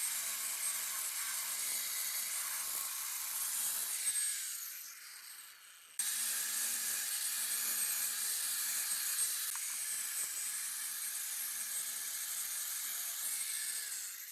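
A power tool working on metal: a steady hum under a hiss. It fades away about four to six seconds in, cuts back in abruptly, and fades again near the end.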